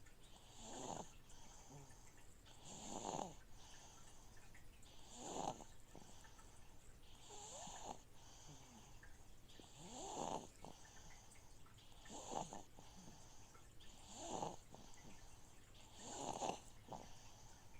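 Baby snoring softly in sleep, a snoring breath about every two seconds, over the steady low hum of a noisy aquarium filter pump.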